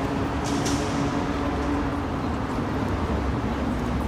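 Steady low rumble of vehicles, with a steady hum that fades about two seconds in.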